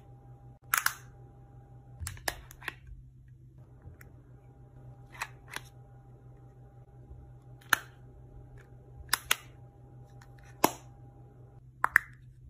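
Sharp plastic clicks of makeup compacts being snapped open and shut, about a dozen at irregular intervals, over a faint steady hum.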